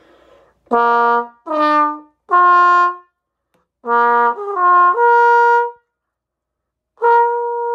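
Bass trombone played through a Windy City straight mute: two short phrases of three rising notes each, then a held note starting near the end. The muted tone has a little sizzle.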